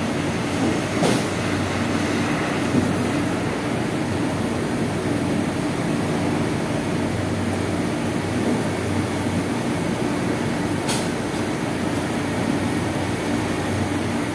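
A steady mechanical hum and rush, a machine running without letup, with a faint click about a second in and another near the end.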